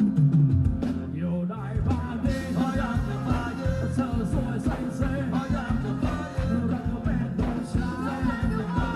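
Thai ramwong dance song played by a band, with a singer over a steady beat.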